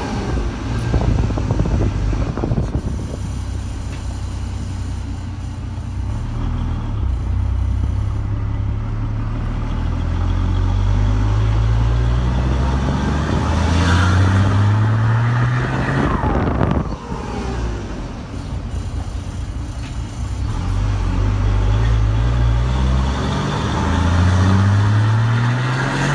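Chevrolet Silverado's six-cylinder MWM turbodiesel with a new 'pente' exhaust, loud and 'gritadeira' (screaming), pulling up through the gears. The engine note climbs in pitch again and again and drops back at each gear change.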